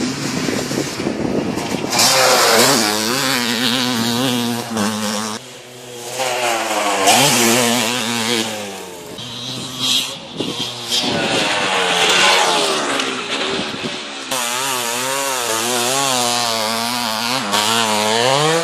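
Yamaha YZ250 two-stroke motocross bike engine revving hard, its pitch climbing and falling over and over as it is ridden, with a couple of brief lulls.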